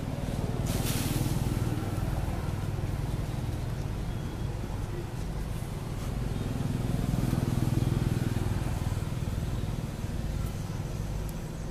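Low rumble of a motor vehicle's engine running, swelling louder about eight seconds in, with a brief hiss about a second in.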